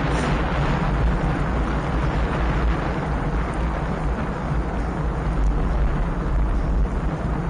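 Wind buffeting an action camera's microphone while riding: a steady low rumble with hiss over it.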